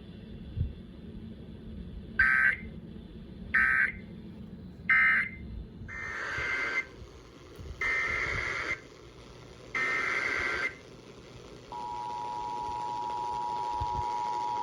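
Emergency Alert System SAME data bursts: three short buzzy bursts, the end-of-message code closing one alert, then about a second later three longer header bursts opening the next alert. About 12 seconds in, the steady two-tone EAS attention signal begins.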